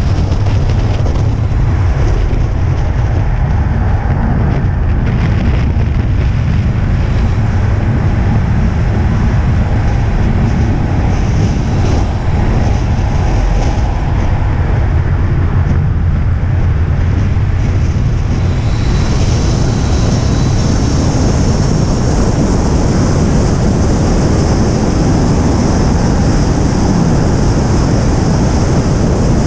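Onboard sound of a car lapping a wet race circuit: a steady, loud mix of engine and wet-road noise. The hiss turns brighter about two-thirds of the way through.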